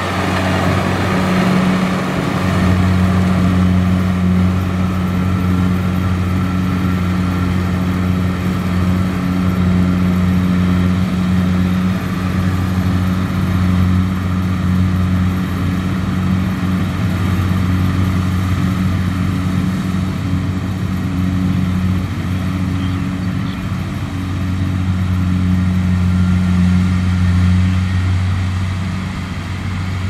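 Kubota DC70Plus combine harvester's diesel engine running steadily with a deep, even drone, easing slightly in the middle and fading near the end as the machine moves away.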